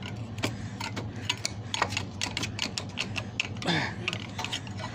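A thin metal tool poking and scraping inside the slots of a pipe's top cap, chipping at the cement that holds the cap. It makes a quick, irregular run of clicks and taps.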